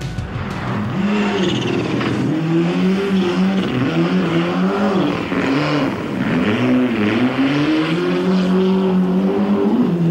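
Ford Escort rally car's turbocharged four-cylinder engine at full stage pace. The engine note climbs and drops again several times as the car changes gear and lifts through corners, over tyre and gravel noise.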